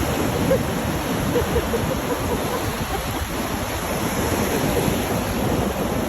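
Ocean surf breaking and washing in a steady roar of water, with wind buffeting the microphone.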